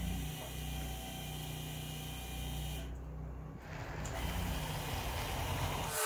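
Electric hydraulic pump of a portable car lift running steadily with a low hum and hiss as it raises a car.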